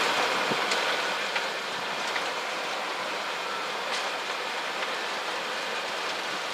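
Cockpit noise of a Boeing 737-800 rolling out on the runway just after touchdown with reverse thrust selected: a steady rumble from its CFM56 engines and the wheels, easing off over the first two seconds and then holding, with a few light knocks.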